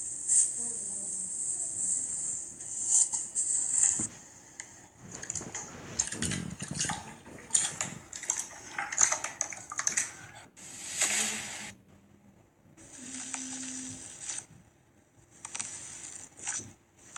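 Slime being squished and worked by hand, making clusters of sticky, wet clicks and pops, thickest in the middle of the stretch.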